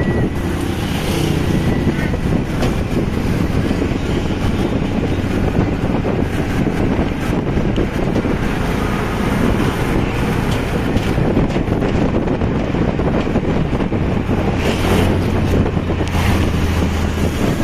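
Motorcycle taxicab's engine running steadily at road speed, with wind buffeting the microphone.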